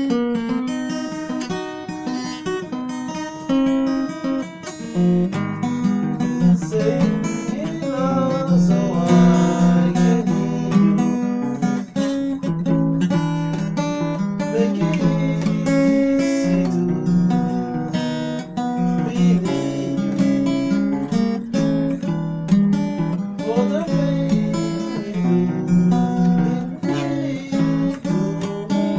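Acoustic guitar strummed in a steady accompaniment: an instrumental stretch of a song in the key of F.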